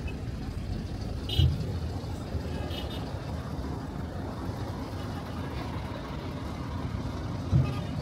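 Road traffic of trucks and cars: a steady low rumble, with two brief low thumps, one about a second and a half in and one near the end.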